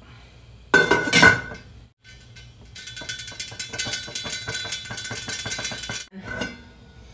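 Glass lid with a steel rim set on a stainless steel stockpot: a loud metal clank about a second in, then a ringing tone with fast, regular clicking for about three seconds as the lid settles on the rim.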